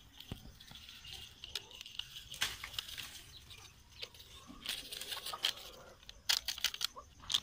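A spoon scraping and stirring through a crumbly dal-and-egg mixture in an aluminium pot, with the crinkle of a plastic spice sachet, in irregular scratchy bursts.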